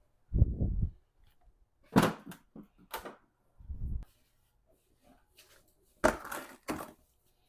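Plastic lower grille mount and its clips being pried and worked loose: two dull thuds and a few short bursts of sharp cracking and scraping.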